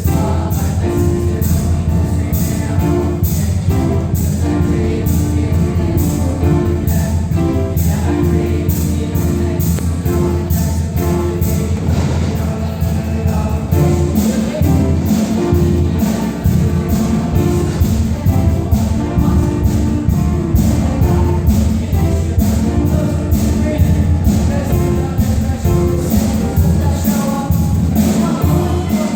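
Music: a choir singing over a loud band with a steady beat and tambourine.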